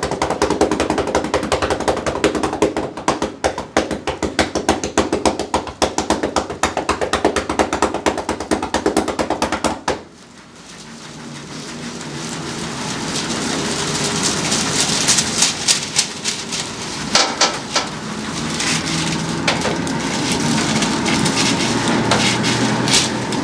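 Percussion massage gun pounding rapidly against the body, cutting off abruptly about ten seconds in. After that comes a hiss that slowly grows louder, with scattered taps.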